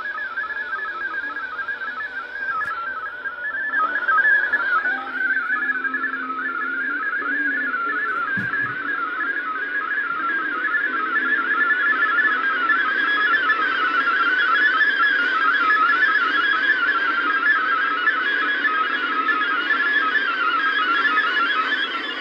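MFSK digital-mode data signal of the VOA Radiogram broadcast, heard through a shortwave receiver: a continuous warble of quickly hopping beeping tones around one fixed pitch. The tones grow fuller and busier about halfway through.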